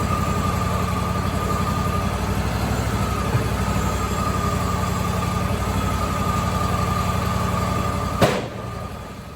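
Sawmill machinery running steadily, with a low engine-like hum and a constant high whine. It cuts off suddenly with a click about eight seconds in.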